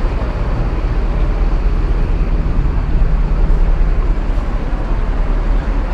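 Large diesel bus engine idling close by: a steady low rumble.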